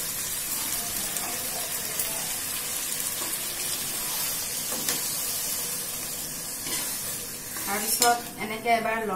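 Greens, potato and jackfruit seeds sizzling in a hot metal wok, with water poured in partway through and a metal spatula stirring and scraping the pan; a steady hiss throughout.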